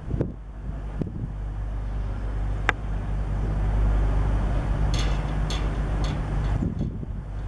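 Class 222 Meridian diesel multiple units, heard at a distance, their underfloor diesel engines running with a steady low drone. A few sharp clicks are heard around the middle.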